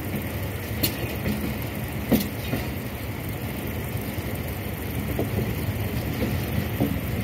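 Passenger train running along the track, a steady rumble heard from inside a coach, with sharp knocks about one and two seconds in.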